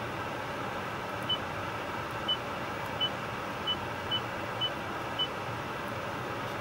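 Toyota Entune 2.5 touchscreen head unit beeping at each key press as a distance is typed on its number pad: seven short, identical high beeps about half a second to a second apart, over a steady hiss.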